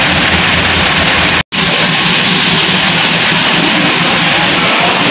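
Massey Ferguson tractor's diesel engine running under a loud, steady hiss of heavy rain. The sound cuts out for an instant about a second and a half in.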